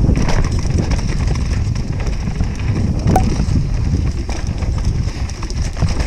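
Trek Session 9.9 29er downhill mountain bike ridden down a rough bike-park trail, heard from a chest-mounted action camera: a steady rolling rumble of tyres and suspension over the ground, with many short knocks and rattles from the bike over bumps, and a brief squeak about three seconds in.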